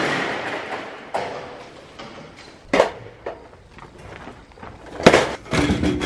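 Sheet-metal fluorescent light fixtures being stacked and handled, clanking and rattling against one another. It opens on a ringing clatter, then a few separate sharp knocks, with the loudest clank about five seconds in followed by a quick run of clattering.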